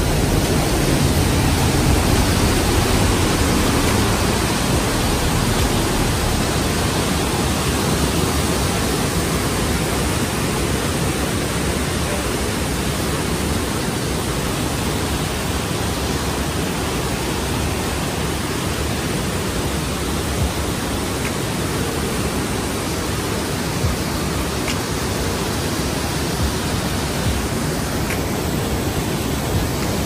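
The Rhine Falls, a broad, high-volume river waterfall, heard close up: a loud, steady rush of plunging water with deep rumble and hiss together.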